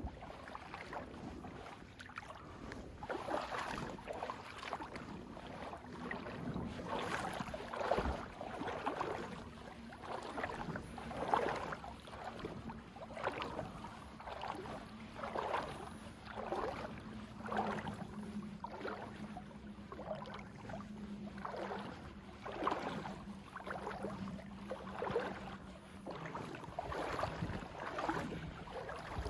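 Someone wading through a creek on foot: water sloshing and swishing around the legs with each stride, about one step a second.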